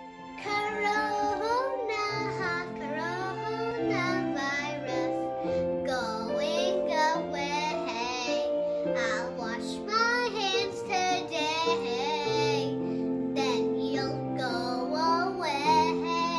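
A young boy singing a children's song over chords on an electronic keyboard. The held keyboard notes change every second or two under the sung melody.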